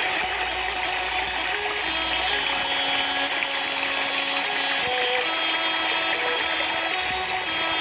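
Background instrumental music: held notes that change pitch every second or so, over a steady hiss.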